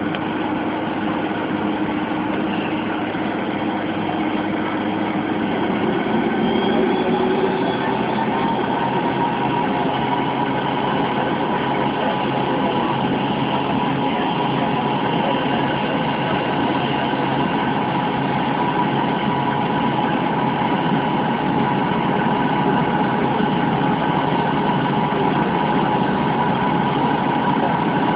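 Fokker 100's rear-mounted turbofan engines heard from inside the cabin, spooling up to takeoff power. About six to eight seconds in, the whine rises in pitch and the roar grows louder, then holds steady for the takeoff roll.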